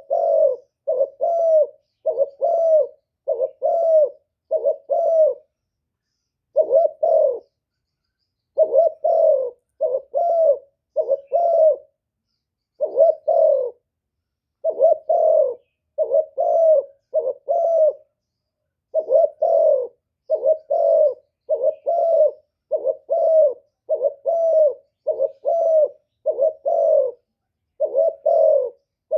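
Spotted dove cooing over and over, a lure call meant to provoke wild doves: low coos in quick runs of several notes, with short pauses between the runs.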